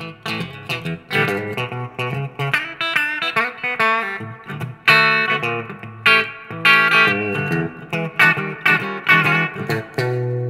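Epiphone Les Paul Standard Pro electric guitar played through a Marshall MG30FX combo amp on its clean mode with reverb. Picked single notes and chords follow in a quick, unbroken run.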